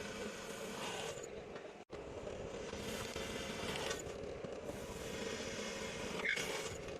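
Electric drill running and boring through sheet metal, with a steady motor whine. The sound drops out for an instant about two seconds in, and a short high squeal comes about six seconds in, the loudest moment.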